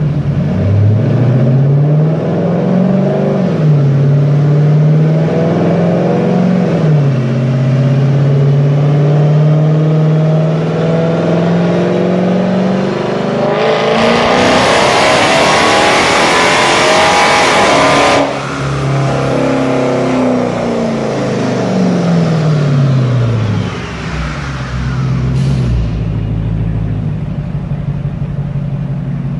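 2006 Dodge Charger R/T's 5.7-litre Hemi V8, breathing through Hellcat headers and a full Hellcat cat-back exhaust, run on a chassis dyno: a couple of short revs, a steady climb in revs, then a loud wide-open-throttle pull about halfway through. The throttle then shuts and the revs wind back down.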